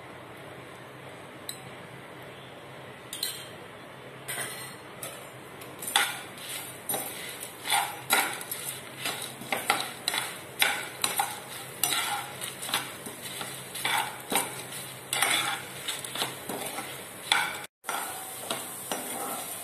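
Whole spices and chana dal frying in a little oil in a pan, with a faint sizzle at first. From about four seconds in, a spatula scrapes and knocks against the pan as they are stirred, about two strokes a second.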